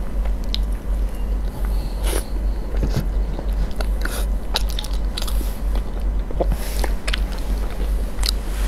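Close-miked eating of a soft, creamy dessert: chewing, biting and wet mouth smacks, with scattered small clicks of a wooden spoon against a plastic tub. A steady low hum runs underneath.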